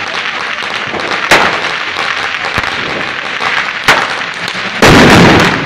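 Firecrackers bursting in a dense, continuous crackle, with single sharp bangs about a second in and again near four seconds. Near the end comes the loudest part, a half-second burst of rapid bangs.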